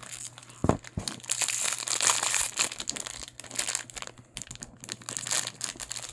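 Foil blind-bag wrapper crinkling and tearing as it is handled and pulled open, with a knock under a second in as the plastic toy capsule is pulled apart.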